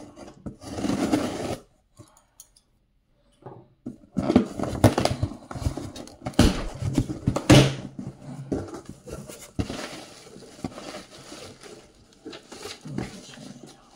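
Scissors cutting packing tape on a cardboard box, then the cardboard flaps being pulled and torn open. A short cut comes about half a second in; after a pause, from about four seconds in, there is a long stretch of cardboard rustling and tearing that is loudest for the next few seconds and then fades.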